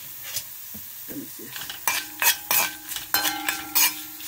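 Spoon stirring onions, dried red chillies and turmeric and chilli powder as they fry in oil in a metal pan, under a steady sizzle. From about two seconds in, a run of sharp clinks and scrapes of the spoon against the pan, some leaving a short ringing tone.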